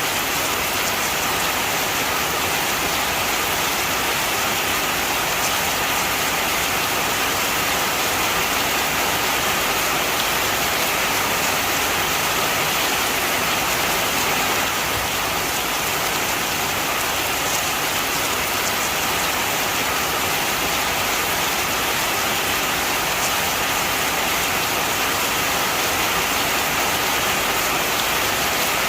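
Steady heavy rain falling, an even hiss of many drops on surfaces.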